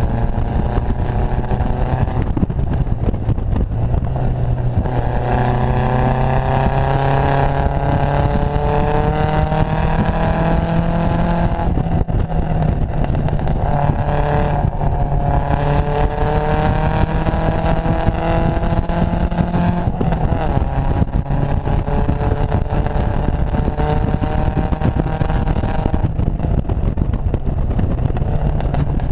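Datsun Fairlady roadster's four-cylinder engine pulling under load as it is driven, its note climbing slowly and then dropping back several times, over a steady rush of wind and road noise in the open car.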